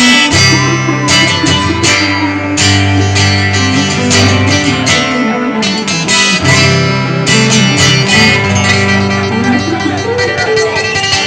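Country song's instrumental outro: strummed acoustic guitar with a bass line and other instruments playing steadily.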